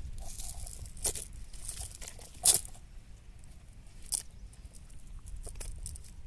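Cast net and its catch being handled: crinkling and rustling with a few sharp snaps, the loudest about two and a half seconds in.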